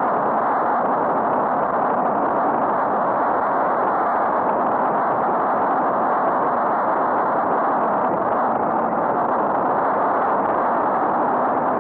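Steady rushing noise of wind and road traffic on a riding cyclist's helmet-camera microphone, even throughout with no distinct events.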